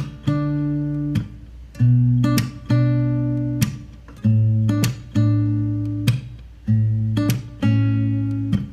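Background music: an acoustic guitar strumming slow, sustained chords, with no voice yet.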